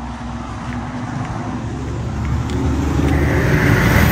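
A motor vehicle's engine running and growing steadily louder, with tyre and road noise swelling near the end as it comes closer.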